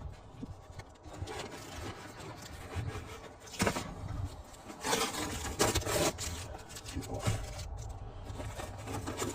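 Rubbing and scraping as the contents of a delivery box are handled and rummaged through, with a few sharper scrapes in the middle.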